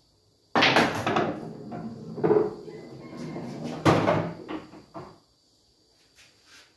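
A pool cue strikes the cue ball, which knocks the red ball into a pocket. The sharp click of the cue starts about half a second in, followed by the pocketed ball rolling and knocking inside the table, with a last loud knock near four seconds in before the sound dies away.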